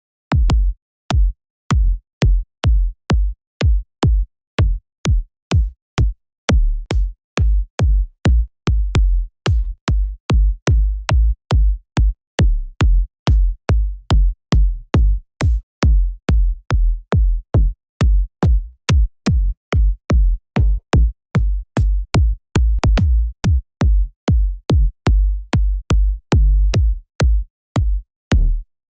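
Electronic dance music kick drum samples played one at a time in quick succession, about two a second, with a short gap of silence between them. Each kick is a sharp click over a deep bass tail, and the tails vary in length from sample to sample.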